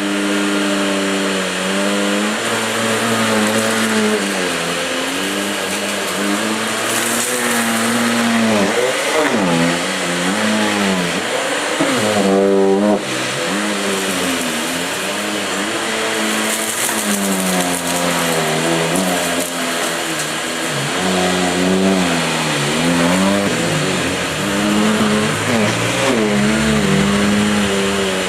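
Hoover Sensotronic System 50 canister vacuum cleaner with its Electro Kinetic power nozzle running on a rug. The motor's pitch rises and falls over and over as the load on it changes.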